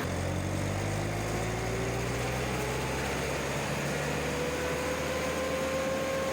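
Bandit 1590XP drum chipper's engine running at low revs while the clutch is engaged, with a whine that rises slowly in pitch as the chipper drum spins up to speed, levelling off near the end.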